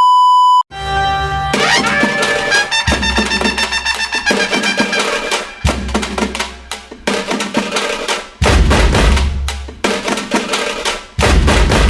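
A short steady beep, then intro music with a drum beat and heavy bass hits about every three seconds.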